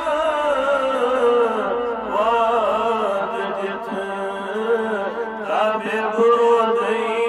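A man singing a devotional nazm in long, drawn-out held notes that waver and bend in pitch.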